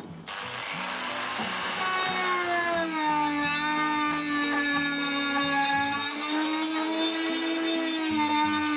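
Electric power tool motor, a drill or grinder at work on the rusty hammer heads, starting just after the beginning, rising briefly in pitch as it spins up, then running at a steady speed.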